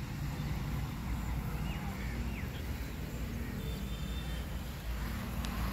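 Outdoor ambience: a steady low rumble, with a few faint bird chirps in the first half.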